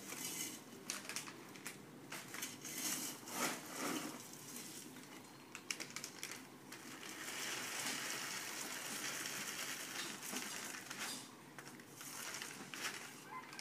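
Plastic bags and packets rustling and crinkling as they are handled, with scattered sharp clicks and knocks. There is a longer stretch of steady rustling in the middle.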